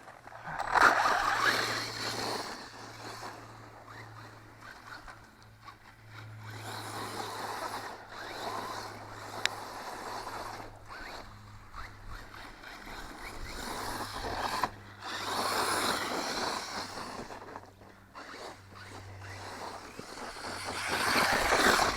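JLB Racing Cheetah RC truck running on a 2S LiPo with smaller buggy tires: the motor, drivetrain and tires on the ground swell louder and fade away several times as the truck drives past.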